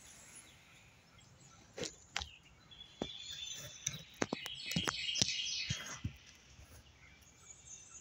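Birds chirping in a busy burst of calls from about three to six seconds in, mixed with several sharp clicks.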